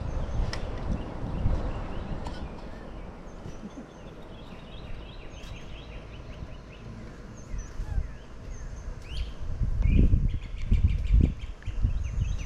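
Birds chirping and trilling repeatedly over a low rumbling noise, which swells into heavier low bumps near the end.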